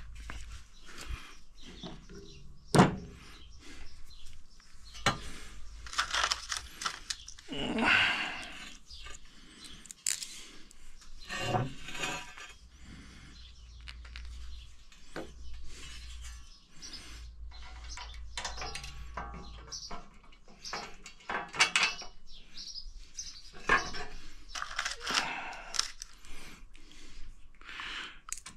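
Metal roof rack parts being handled and fitted: scattered clinks, knocks and rattles at irregular intervals, with a few louder knocks.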